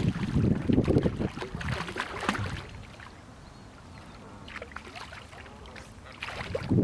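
Wind buffeting the microphone in gusts, loud at first, dropping away about three seconds in and picking up again near the end.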